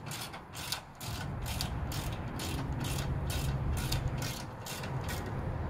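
Hand ratchet clicking in quick, even strokes, about three or four a second, as a skid plate clamp screw is driven onto the motorcycle frame; the clicking stops near the end. A low steady rumble comes in about a second in.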